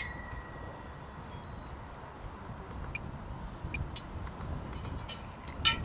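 Wind buffeting the microphone, with the faint steady whine of a distant electric RC triplane's motor. A few short sharp clicks break in, the loudest near the end.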